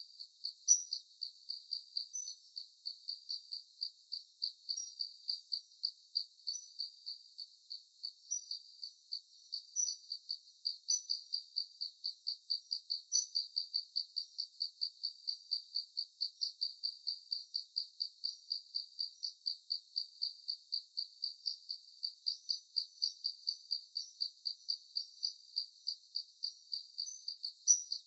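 Crickets chirping steadily in an even rhythm of about three high chirps a second, with a few fainter, higher chirps over them.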